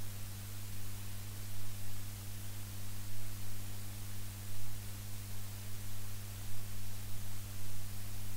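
Steady low electrical hum with a faint higher hum above it, over an even hiss: the background noise of the recording.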